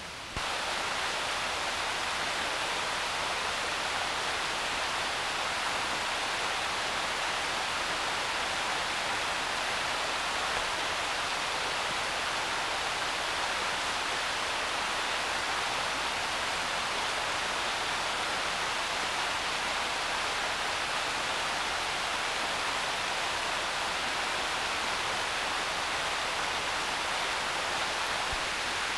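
Rocky mountain river rapids rushing: a steady, even sound of fast water that steps up in level just after the start.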